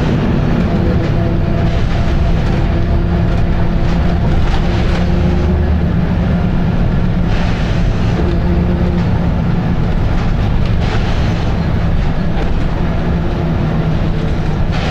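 Volvo B7RLE single-deck bus's six-cylinder diesel engine running loudly under way, heard from on board with a steady low drone. A brief burst of noise comes about halfway through.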